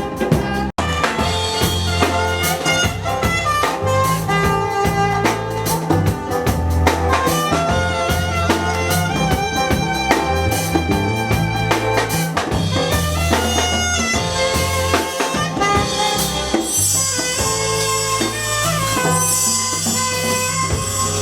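Live band playing an instrumental passage at a sound check, with drum kit and a steady bass line under melodic instruments. The sound cuts out for an instant just under a second in.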